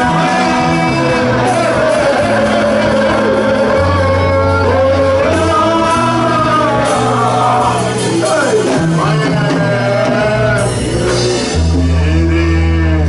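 Live gospel worship music: a man singing lead into a microphone over a band of keyboard and drums, with steady held bass notes.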